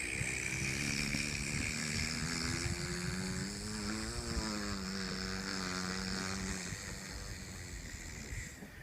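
An aircraft passing overhead: a steady high engine whine over a low drone whose pitch shifts around the middle, rising in over about a second and dying away at the end.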